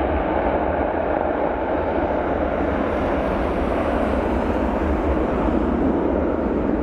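Boeing 737-800 jet engines running, a steady, loud noise with a low rumble underneath.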